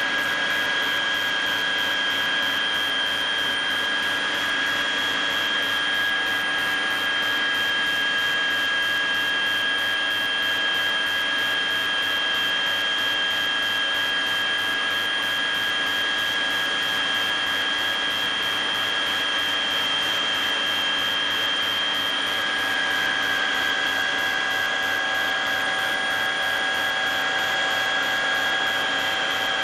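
Steady aircraft turbine engine noise heard from inside the cabin: an even rush with a constant high whine at two pitches.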